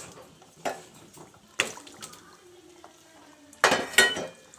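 Wheat-flour biscuits frying in hot oil in an aluminium kadai, a low steady sizzle under sharp clinks of a metal utensil against the pan, with two louder metal clatters near the end.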